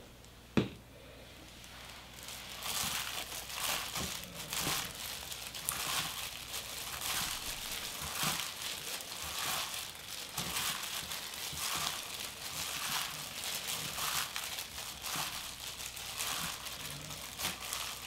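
Thin disposable plastic gloves crinkling and rustling as hands toss and squeeze seasoned spinach in a glass mixing bowl, a busy, irregular crackle that keeps going. A single sharp knock comes about half a second in, before the mixing starts.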